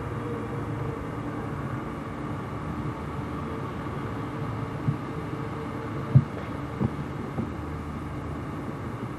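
Steady low hum with a few held tones, and four dull knocks about five to seven and a half seconds in, the loudest a little after six seconds.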